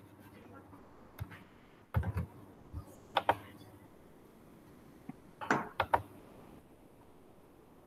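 Scattered clicks and taps on a computer keyboard and mouse, in small clusters about two, three and six seconds in, while a presentation slide is being advanced.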